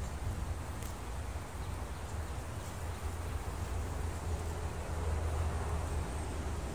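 Outdoor background of a steady low rumble, with faint rustling and a click or two as litter is picked through by hand on dry ground.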